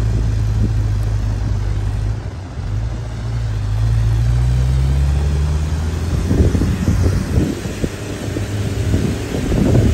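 Motor vehicle engine running steadily, rising in pitch between about three and five seconds in as it speeds up. About six seconds in it gives way to uneven low rumbling with wind buffeting the microphone.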